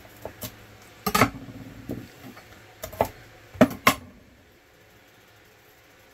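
Chef's knife cutting green onions on an end-grain wooden cutting board: a few scattered knocks and taps of the blade against the wood, the loudest two close together about three and a half seconds in.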